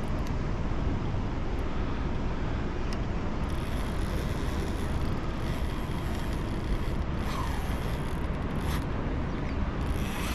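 Boat's outboard motor idling steadily in neutral, a continuous low rumble.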